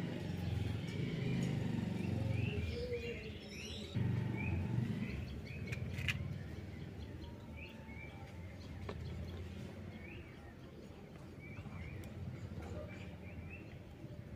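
Small birds chirping, short rising calls repeating again and again, over a low rumble that eases after about five seconds. A single sharp click comes about six seconds in.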